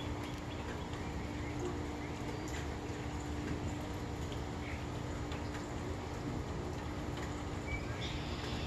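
Steady background hiss with a low continuous hum, and scattered faint short chirps of small birds.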